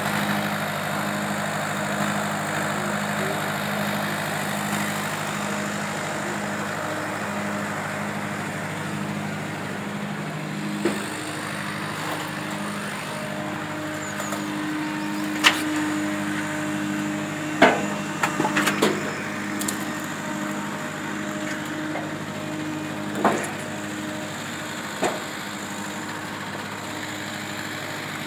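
Tractor engine running steadily, driving a Binderberger Gigant 40 log splitter through its power take-off. Over the engine come several sharp cracks and knocks of logs splitting and split pieces dropping, spread through the second half with a quick cluster about two-thirds in.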